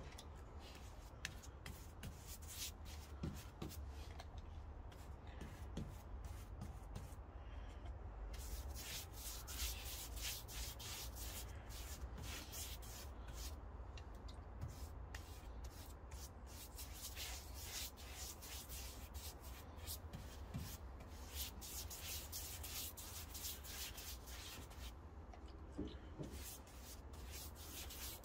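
Paintbrush strokes laying clear wood treatment onto pine boards: a fast run of soft bristle swishes on the wet wood, with a low steady rumble underneath.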